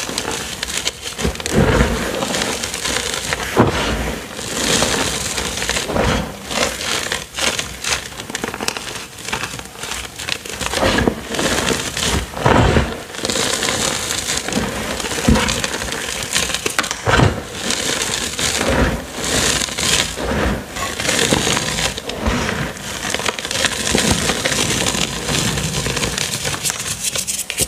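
Hands crushing and crumbling purple dyed gym chalk pieces topped with cornstarch: dense, irregular crunching and crackling, with a few stronger crunches as handfuls are squeezed.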